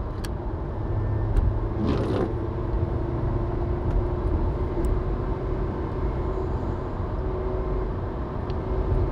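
Car driving on wet roads: a steady low rumble of engine and tyre noise, with a brief swish about two seconds in and a steady hum from then on.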